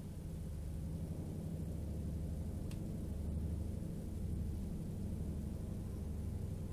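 A steady low hum with one faint, short click about two and a half seconds in. The click fits a single count from the SOEKS 01M Geiger counter at a normal background level.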